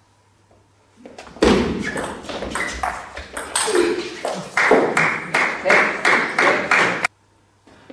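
Table tennis rally: the celluloid ball clicks sharply back and forth off the bats and the table in quick succession, starting about a second in and cutting off suddenly near the end.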